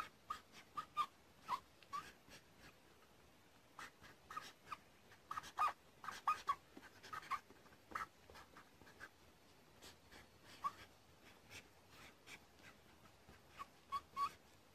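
Faint, irregular light taps and clicks in small clusters with short gaps between them.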